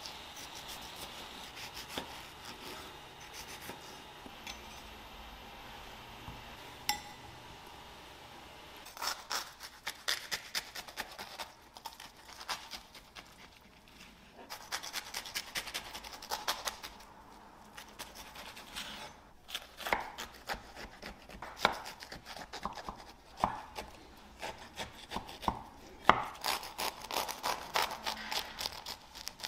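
A serrated knife cutting food on a wooden cutting board. It is soft at first, then from about nine seconds in come many quick, scratchy sawing strokes as the blade rasps through crisp toasted bread.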